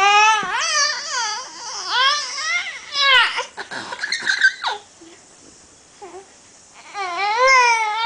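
A 4-month-old baby crying and fussing during a bottle feed: a string of short rising-and-falling wails in the first few seconds, a pause, then a longer wail starting about seven seconds in.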